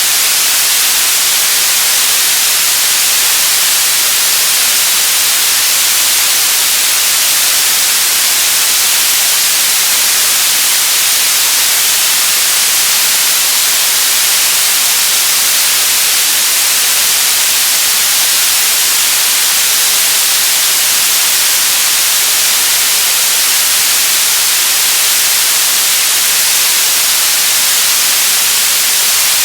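Television static: a loud, steady hiss of white noise, strongest in the high frequencies, unchanging throughout.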